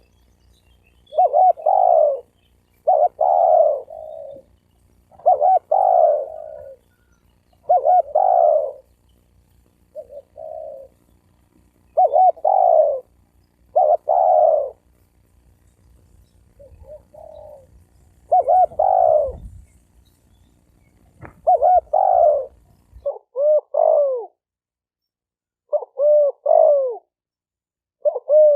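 Spotted doves cooing in repeated short phrases, one every second or two. A low background hum cuts out about 23 seconds in, leaving the coos clearer.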